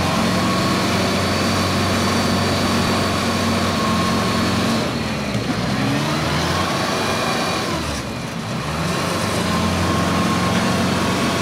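Kubota DC-105X combine harvester's diesel engine running hard under load while the machine is stuck in mud and not moving. A steady whine rides over it, and the engine note dips and shifts pitch around the middle before steadying again.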